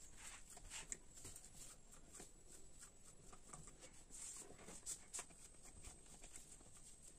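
Faint, irregular soft pats and rustles of fingers pressing and spreading ragi dough thinly across a banana leaf.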